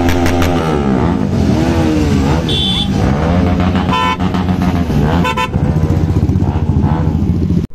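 Motorcycle engines running, their revs rising and falling, with short vehicle-horn toots about two and a half, four and five seconds in.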